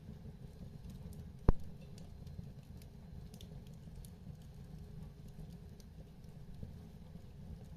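Wood fire burning in a fireplace: a low rumble of flames with scattered faint crackles, and one sharp, loud pop about one and a half seconds in.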